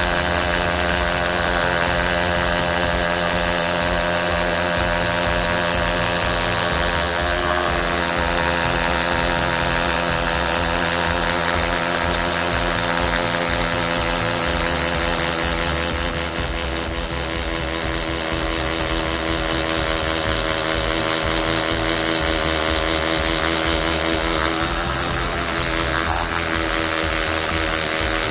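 Tool n Tool GTC-HD18V 18 V cordless hammer drill running non-stop in low gear, boring into a concrete paving block. The motor is under heavy load and running hot enough to give off a slight burning smell.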